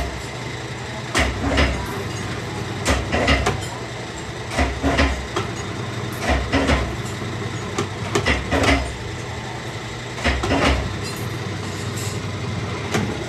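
Groups of two or three sharp knocks, each with a low thump, repeating about every one and a half to two seconds over a steady hum.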